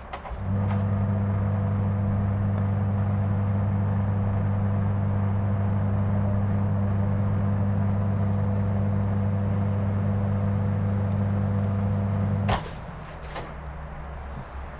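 Washing machine running with a loud, steady low electric hum that starts about half a second in and cuts off suddenly about two seconds before the end.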